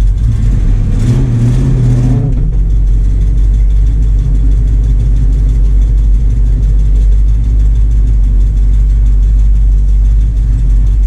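1966 Ford Mustang's V8 engine running as the car is driven: a steady low drone that swells and pulls harder for about a second, starting about a second in, then settles back to an even rumble.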